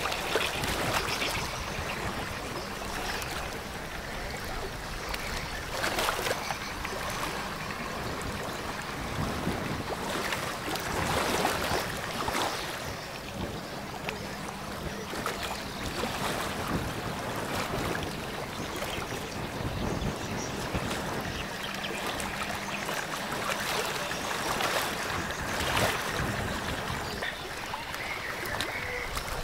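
Water washing from a passing container ship's wake, with gusts of wind on the microphone and a faint steady low engine hum that stops after about twenty seconds.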